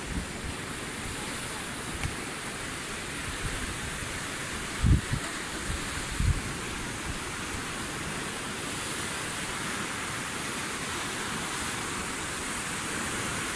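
Steady wash of sea surf, with a few low thumps of wind on the microphone, the loudest about five and six seconds in.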